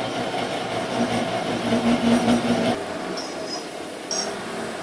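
Metal lathe running with a flour-mill wheel disc and shaft spinning in its chuck: a steady mechanical hum, with a louder whine from about a second in that drops away just before three seconds. Two short high squeaks come near the end.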